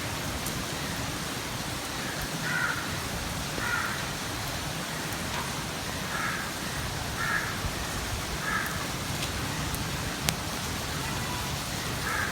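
Steady rainfall, with a bird calling six times in short calls spread through the rain, and a single sharp tick about ten seconds in.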